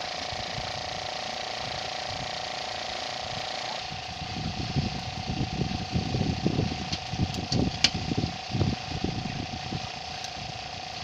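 Spinning fishing reel being cranked, a steady mechanical whir with a held tone. From about four seconds in, irregular low rumbles join it.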